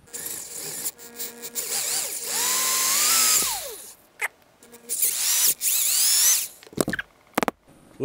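Handheld power drill with a 10 mm bit boring into a solid wooden ball. The motor runs in two main bursts, its whine rising as it speeds up and dropping as it stops, with a few shorter bursts and clicks between.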